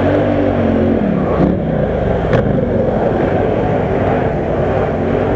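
Quad bike (ATV) engine running close by, its revs rising and falling over the first couple of seconds, then running steadier.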